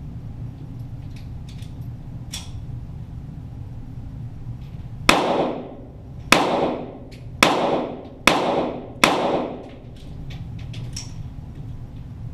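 Five .22 Walther GSP target-pistol shots, about a second apart, starting about five seconds in, each a sharp crack with a short echoing decay.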